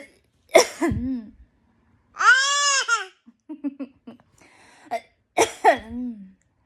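A nine-month-old baby making pretend coughs in imitation of a cough, each short cough trailing off in falling-pitched voice. A high squeal comes in between, about two seconds in, and a second run of coughs follows past the middle.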